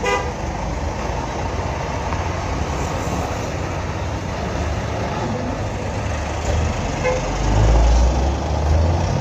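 Big coach diesel engines running and moving past at close range over a steady rumble of road traffic, with a short horn toot at the very start. Near the end the low engine sound swells louder for about a second and a half as a bus pulls away or passes.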